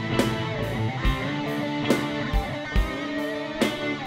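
Band music: guitar playing over a steady drum beat, with a sharp drum hit a little under once a second.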